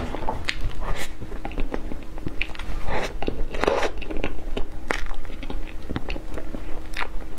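A person chewing mouthfuls of soft whipped-cream layer cake close to the microphone, with many small wet clicks from the mouth.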